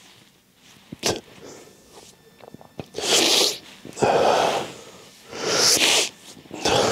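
A man crying: four loud, breathy sobbing out-breaths in the second half, with a short click about a second in.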